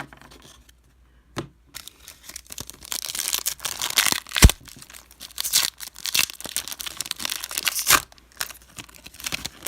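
Trading-card pack wrapper being torn open roughly and crinkled in the hands, with a sharp snap about four and a half seconds in and another near the end.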